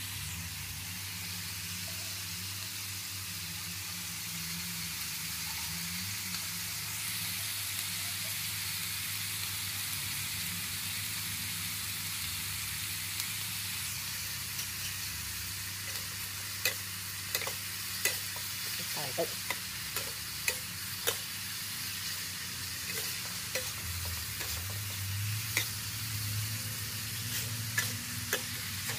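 Chopped eel frying in an aluminium wok with a steady sizzle. From about halfway through, a metal spatula stirs the pieces, clicking and scraping against the wok.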